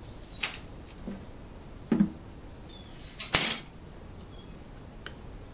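Handling noise of a plastic ABS pipe cap with an acrylic window being turned over in the hands: a few separate clicks and knocks, with a short rasp just after three seconds in.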